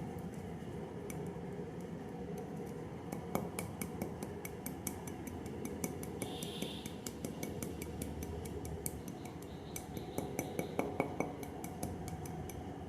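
Dry clay being crushed and crumbled, a steady gritty crunching dotted with many sharp crackles and clicks.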